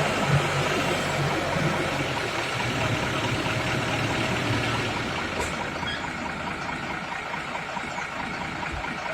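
Heavy diesel engine running steadily, with a low rumble that eases a little past the middle.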